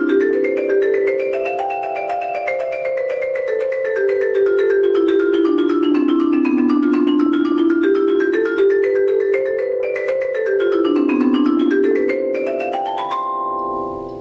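Dynasty marimba played with four mallets: fast streams of notes in runs that climb and fall. About thirteen seconds in, it ends on a rising run and a final chord that rings out.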